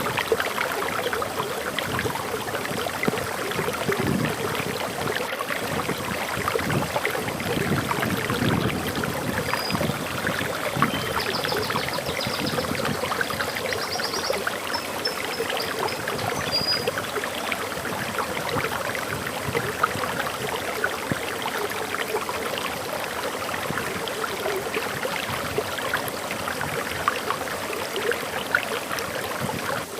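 Waterfall flowing and splashing steadily. A bird sings a short, high phrase of chirps and a quick trill from about ten to seventeen seconds in.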